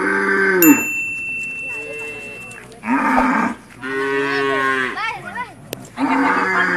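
Cattle mooing in a corral: four long, drawn-out moos about a second each, one after another.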